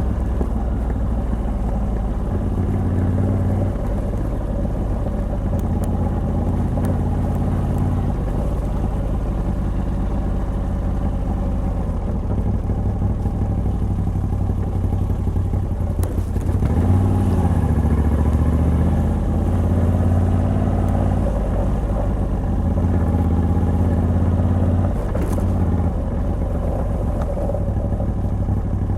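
Moto Guzzi V85TT's air-cooled transverse V-twin, with a decatted stock exhaust, being ridden on the road. The engine note rises and falls with the throttle: it eases off about twelve seconds in, pulls harder and louder from about halfway through, and drops back again near the end.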